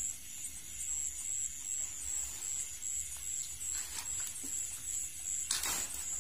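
Crickets chirping in a steady, high, pulsing trill, with a brief rustling swish about five and a half seconds in.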